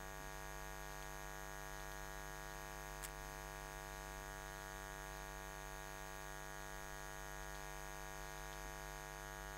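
Steady electrical hum, a stack of unchanging tones with a low mains buzz underneath, picked up by the recording setup. One short faint click about three seconds in.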